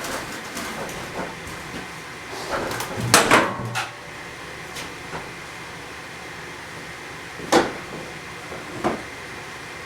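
Clunks and rattles of a push mower being handled and tipped onto its side: a cluster of knocks about three seconds in, then two single knocks later on.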